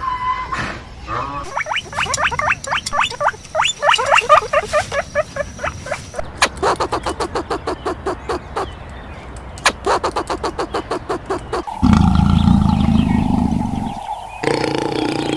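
A string of different animal calls, one after another. First come fast repeated pitched chattering calls, then a run of rapid clicks. About twelve seconds in there is a loud, low, rough call, and near the end a held pitched call.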